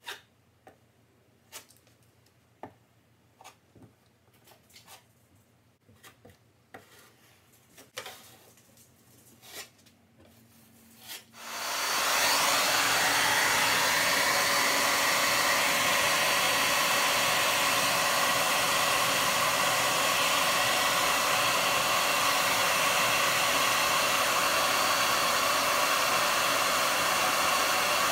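A scattering of light taps and scrapes from a putty knife working the patch, then about eleven seconds in a handheld hair dryer switches on and runs steadily, blowing on the fresh water putty to dry it.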